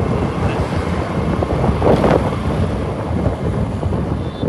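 Wind buffeting the microphone on a moving motorcycle, over the steady noise of the bike and the road. A brief louder gust comes about two seconds in.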